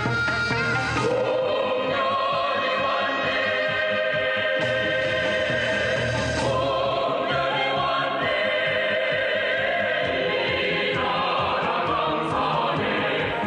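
Recorded music: voices singing long held notes over instrumental accompaniment.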